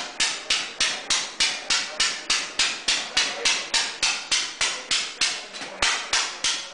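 1883 Daimler hot-tube-ignition gasoline engine running steadily, giving a sharp exhaust bang about three times a second in an even rhythm.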